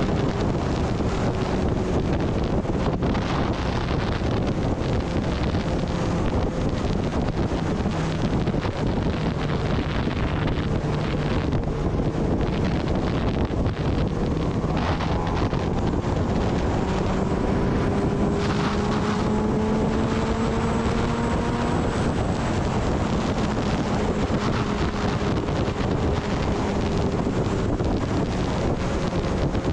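Heavy wind buffeting on the microphone of a Kawasaki Ninja ZX-10R riding at road speed, with the bike's inline-four engine running underneath. The engine note rises steadily for a few seconds about halfway through.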